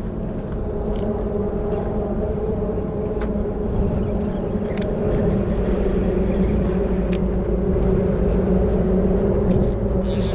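Outboard motor on a small skiff running steadily: an even engine hum over a low rumble, growing a little louder over the first few seconds.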